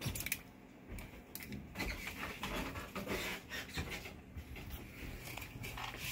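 Irregular clicks, taps and rustling from hands working a downrigger, feeding its cable up through the boom pulley.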